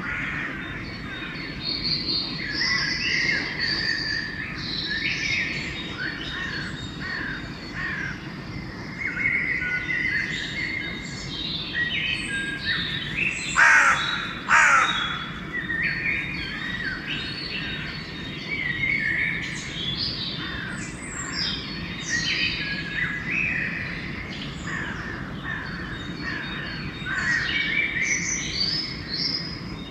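Dawn chorus of songbirds: many overlapping whistled phrases and chirps. Two loud, harsh crow caws cut through about halfway, over a steady low background rumble.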